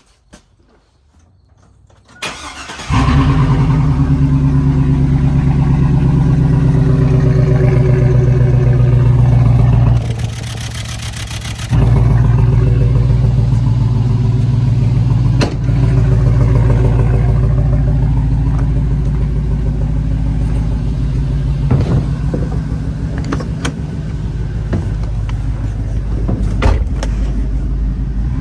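A 2002 GMC Yukon's V8 cranks and starts about two seconds in, then idles loud and steady through a muffler-delete exhaust with a loudencer in place of the muffler. The sound dips briefly about ten seconds in.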